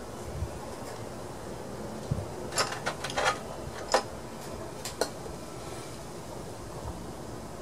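Light clicks and taps from small carburetor parts being handled. A cluster of them comes a couple of seconds in, and the sharpest is about four seconds in.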